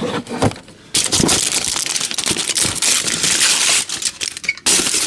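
Aluminium foil handled and crinkled by hand: a dense, loud crackling rustle full of sharp clicks that starts about a second in and breaks off briefly near the end.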